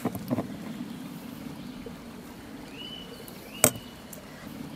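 Knife knocking once, sharply, on a wooden cutting board about three and a half seconds in, with a lighter tap near the start, over a steady low outdoor rush and a couple of short high chirps.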